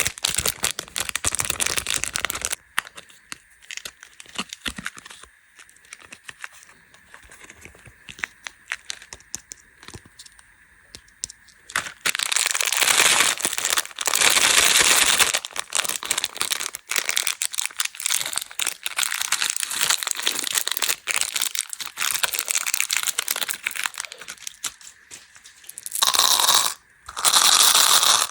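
Plastic candy wrappers crinkling and being torn open, in loud rustling stretches at the start, in the middle and near the end, with quieter clicks and crackles between.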